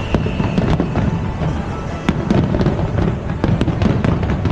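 Aerial fireworks going off in quick succession: a dense run of sharp bangs and crackles over a continuous low rumble, with a brief whistle near the start and music playing along with the show.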